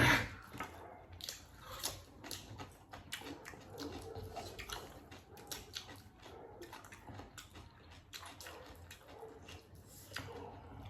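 Irregular wet chewing and mouth-smacking clicks of people eating.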